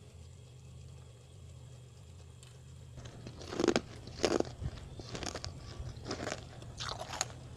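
Mouth biting and chewing freezer frost, a run of crisp crunches about two a second that starts about three seconds in, the first crunch the loudest. A steady low hum runs underneath.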